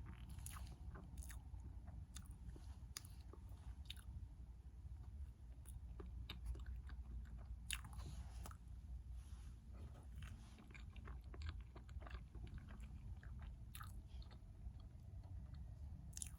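Close-miked eating sounds: a person chewing chocolate mochi roll cake, with many scattered soft mouth clicks over a steady low hum.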